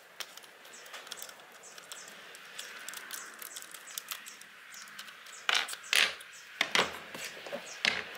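Scraping and handling noise of tools on wood, then from about halfway through a series of half a dozen sharp knocks, the loudest near the end.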